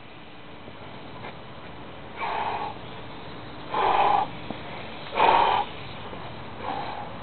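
A person breathing hard: four heavy exhales about a second and a half apart, the middle two the loudest, as a lifter recovers, winded, after a heavy set of push presses.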